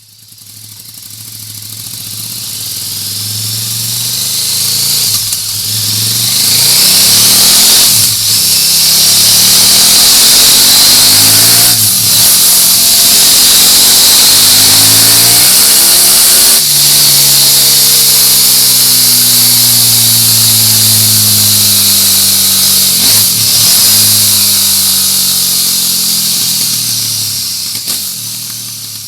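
KTM 1290 Super Duke R's V-twin engine through an aftermarket exhaust, its pitch climbing and falling several times, with a sudden drop about halfway through, under a steady hiss. The sound fades in at the start and fades out near the end.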